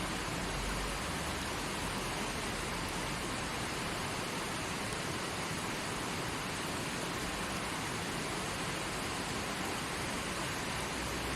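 Mountain river rushing over rocks in its bed: a steady, even water noise.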